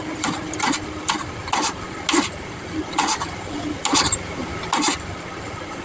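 A series of about ten short, irregular clicks and clatters, like tools or metal parts being handled, over a steady low background.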